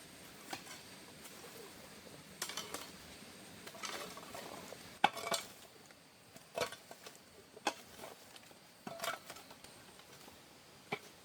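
Hard objects being handled, giving scattered clinks and knocks, about eight in all with short pauses between. The loudest, a sharp ringing clink, comes about five seconds in.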